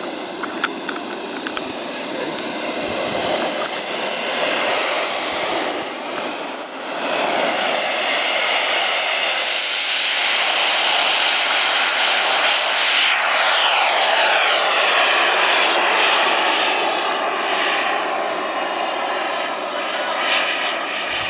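Small turbine jet engine of a radio-controlled model jet running at high power, a loud hissing whine throughout. About thirteen seconds in, the pitch falls steadily as the jet flies past.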